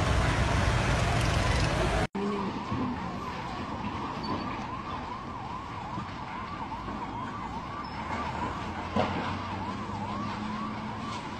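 Loud, noisy street din for about two seconds, cut off suddenly, then a distant emergency vehicle siren sounding a fast repeated rise-and-fall, about three swoops a second.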